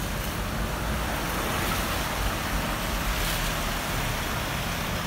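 Steady road traffic on a wet street: cars passing with tyres hissing over the wet surface and a low engine rumble underneath.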